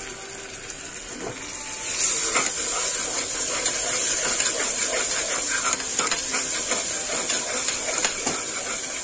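Browned onions with ginger-garlic paste and ground spices sizzling in hot oil in a pot, stirred with a spoon that clicks and scrapes against the pot. The sizzle gets louder about two seconds in.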